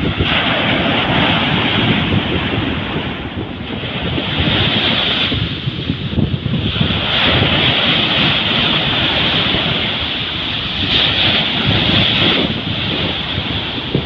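Sea surf washing up a sandy beach, the foamy hiss swelling and fading every few seconds as each wave runs in, with wind rumbling on the microphone.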